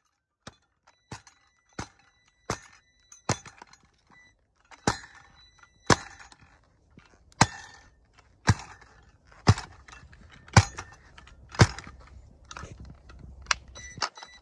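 A cordless Metabo reciprocating saw being banged repeatedly, about a dozen sharp knocks roughly one a second. It is a rough attempt to jar the malfunctioning saw back into working.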